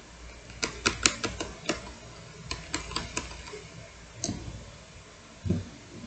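Hard plastic LEGO bricks clicking and clacking as a LEGO puzzle box is handled and taken apart: a quick run of sharp clicks, a second run about two and a half seconds in, a lone click, then a dull thump near the end.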